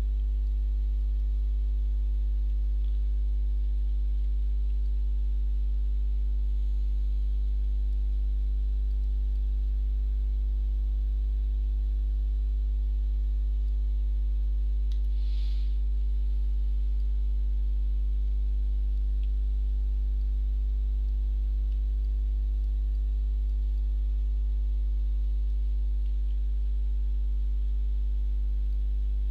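Steady low electrical mains hum, with a brief faint hiss about halfway through.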